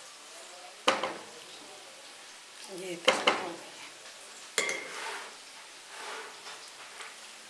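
A spoon scraping and knocking against a cooking pot while stirring macaroni, with sharp knocks about a second in, three seconds in and four and a half seconds in, over a faint steady sizzle from the pan.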